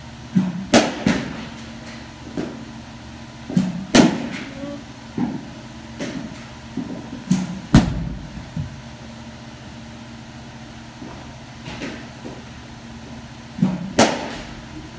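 Softball bat hitting softballs in a batting cage, four loud sharp cracks a few seconds apart, each with a softer knock just before it and a duller thud of the ball into the net after. A low steady hum runs underneath.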